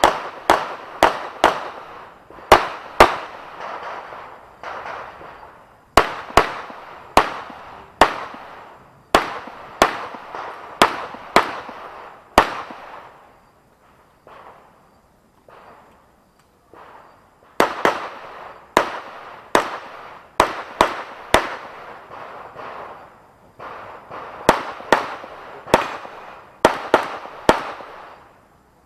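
Handgun shots fired in quick strings of pairs and rapid volleys, dozens in all, each with a short echoing tail. The strings are broken by brief pauses and by a lull of a few seconds around the middle, typical of an IPSC practical-shooting stage.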